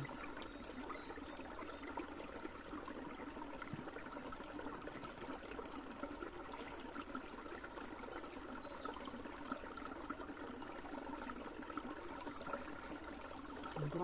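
Small forest stream trickling and burbling steadily over stones.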